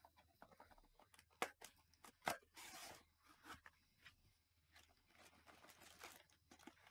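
Faint handling of a cardboard Panini Select baseball hobby box as it is torn open and its packs slid out: a few sharp taps and clicks, with a short tearing rasp of cardboard about a third of the way in.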